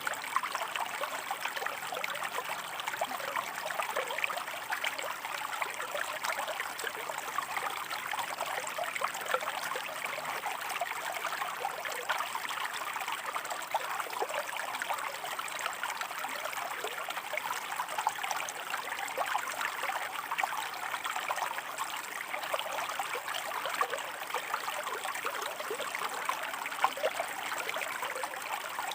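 Shallow stream flowing over rocks: steady burbling and trickling water with many small splashes, even in level throughout.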